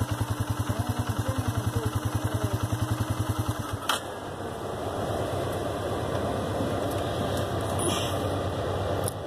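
DOHC four-stroke ATV engine idling with a quick, even thump of about thirteen beats a second, then cut off about four seconds in with a click. A steady rushing noise carries on after the engine stops.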